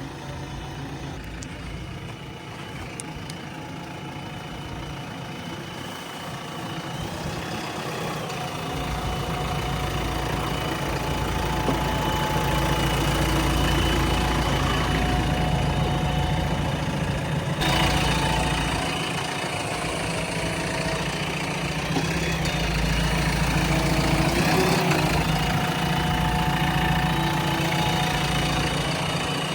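JCB 3DX Plus backhoe loader's diesel engine running steadily, growing louder about a quarter of the way in as it works harder, easing off briefly past the middle, then louder again.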